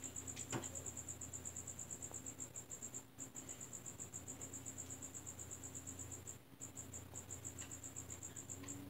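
Faint, high-pitched insect chirping in a steady pulsing trill of about eight pulses a second, broken briefly twice, over a low steady hum.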